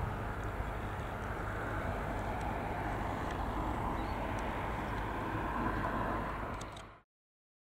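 Steady outdoor noise, a low rumble with a soft hiss above it, fading out quickly about seven seconds in.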